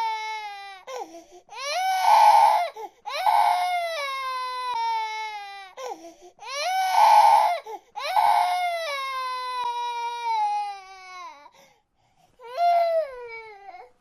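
Baby crying: a string of drawn-out wails, each sliding down in pitch, with quick breaths between them and a short pause near the end before a last cry.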